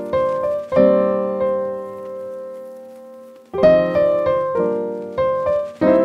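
Background piano music: chords struck and left to ring. One chord dies away slowly for a few seconds before more chords come in.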